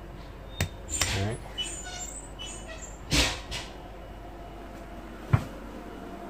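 A small click as the red push switch on a wall panel is pressed, then a brief voice sound, a short rustle of handling, and a sharp click about five seconds in, the loudest sound, over a steady low hum.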